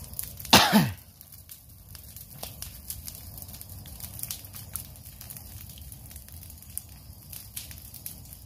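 A smudge fire crackling and snapping with irregular sharp pops. About half a second in there is one short, louder sound that falls in pitch.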